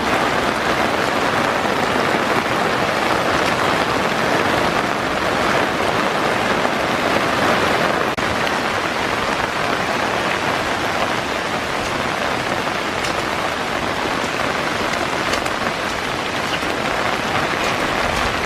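Heavy rain falling steadily: a dense, even hiss of rain with no break.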